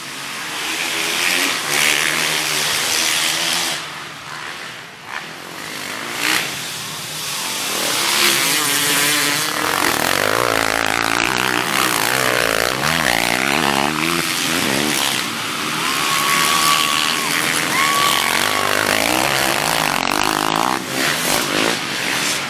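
Motocross dirt bikes racing through a dirt corner: several engines rev up and down as the bikes pass close by, throttling hard out of the turn and throwing dirt. The engine sound swells about a third of the way in and stays loud.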